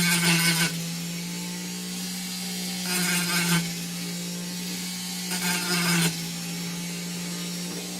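WEN 2305 rotary tool running on its flex shaft at a steady speed with a constant motor whine. Three short grinding passes come in as the bit is touched to the water bottle, near the start, about three seconds in and about five and a half seconds in, trimming off its rough spots.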